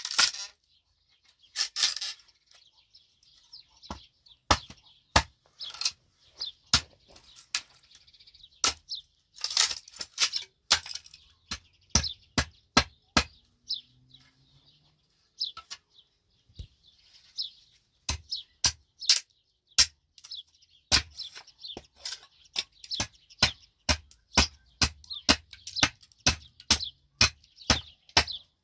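A claw hammer striking wooden boards again and again. The blows are irregular at first and come about twice a second in the second half, with birds chirping in the background.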